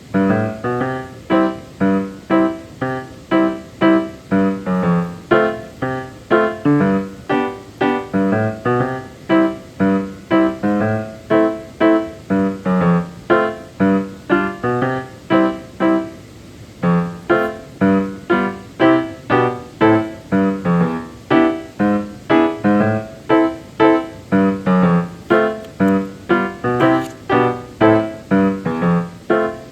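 Background piano music, a steady run of evenly paced notes. It starts suddenly and pauses briefly about two-thirds of the way through.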